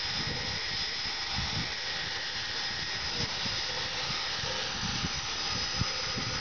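Steady hiss of steam from Nickel Plate Road 765, a 1944 Lima 2-8-4 Berkshire steam locomotive standing under steam, with an irregular low rumble underneath.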